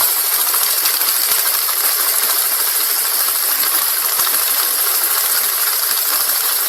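Steady loud hiss with fine crackling through it, like static.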